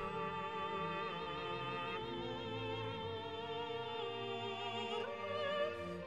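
Background music: an operatic voice holding long notes with vibrato over orchestral accompaniment, the notes changing every second or so.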